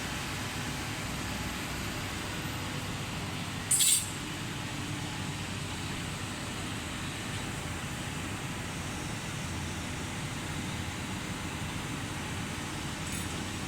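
Steady hum of a hydraulic CNC busbar bending machine running in a workshop, with one brief, sharp, high hiss a little under four seconds in.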